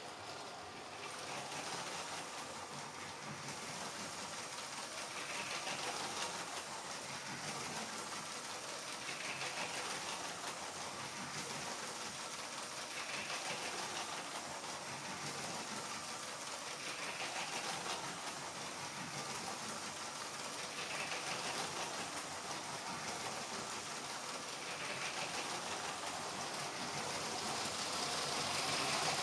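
Toy LEGO trains running on plastic track: a steady whirr and rattle from their small electric motors and wheels, with a brief swell about every four seconds.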